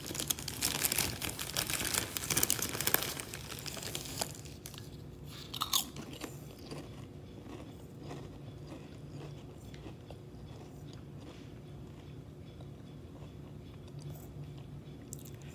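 Spicy Lay's potato chips being bitten and chewed: loud crunching for the first few seconds, then quieter chewing with small crunches.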